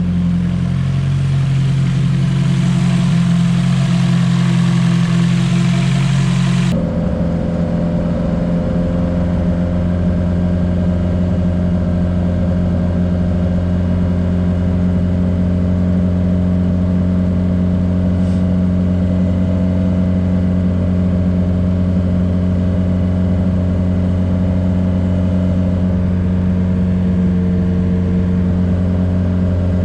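Nissan S14's engine idling steadily, with a rushing hiss over it that cuts off abruptly about seven seconds in, when the engine's hum also changes.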